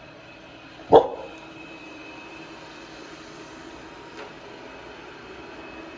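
A golden retriever puppy gives one short bark about a second in, over the steady hum of a robot vacuum running.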